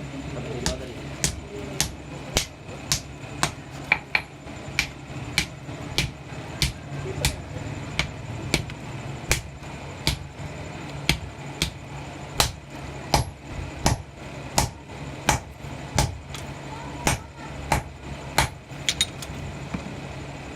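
Hammer striking copper in a steady rhythm, a little under two blows a second, some blows ringing briefly. A steady low hum runs underneath.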